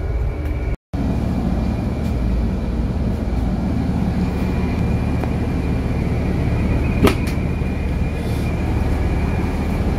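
Steady rumble of a bus's idling front-mounted diesel engine and air conditioning, heard inside the cabin, with a short dropout about a second in and a single click about seven seconds in.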